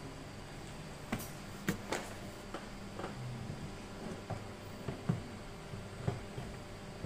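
Irregular light clicks and knocks of motorcycle top-box and rack parts being handled and fitted, about nine over seven seconds with the sharpest near the end, over a steady low hum.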